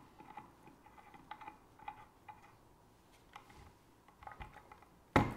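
Faint, irregular light clicks and taps of a knife and a metal ham stand being handled as a cured Ibérico ham leg is set in the clamp, with one sharp knock about five seconds in.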